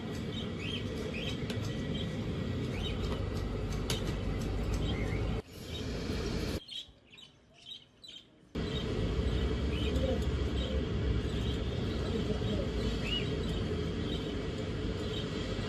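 Small birds chirping over a steady low background rumble, broken by about three seconds of near silence from roughly five and a half seconds in.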